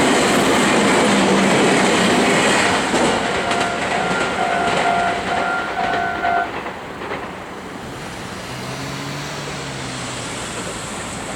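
Two coupled Meitetsu 3100-series electric multiple units passing over a level crossing: loud wheel-on-rail running noise and clatter that falls away after about three seconds as the train moves off. Steady-pitched tones pulse on and off until about six seconds in.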